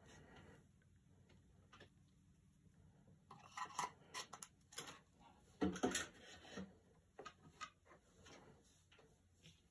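A small fixed-blade knife being worked into a leather sheath: faint scraping and light clicks of leather and blade, with a dull knock about six seconds in.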